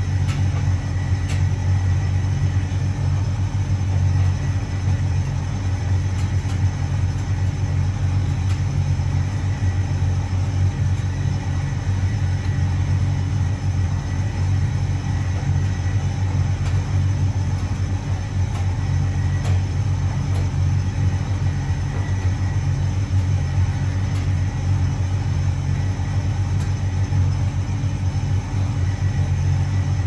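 Hotpoint Reversomatic 9327 vented tumble dryer running, its motor and drum giving a steady low hum and rumble with a few faint ticks.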